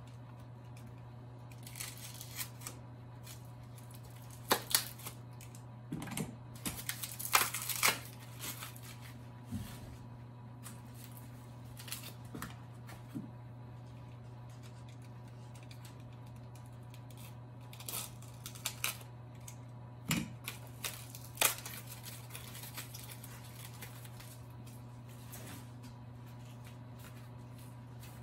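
Plastic packaging being cut and pulled off an office-chair backrest: scattered crinkles and sharp clicks, in clusters about five to eight seconds in and again around eighteen to twenty-two seconds in, over a steady low hum.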